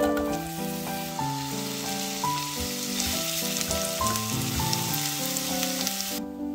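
Chopped onion sizzling in hot foaming butter in a nonstick frying pan. The sizzle starts loud as the onion goes in and cuts off suddenly near the end, with background music throughout.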